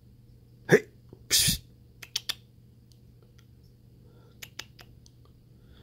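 A sneeze less than a second in: a short sharp sound falling in pitch, then a hissing burst. After it come a few faint clicks as a cat licks another cat's fur.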